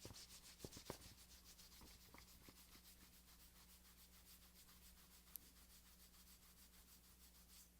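Palms of the hands rubbing together, a faint, even swishing of skin on skin at several strokes a second that stops just before speech resumes.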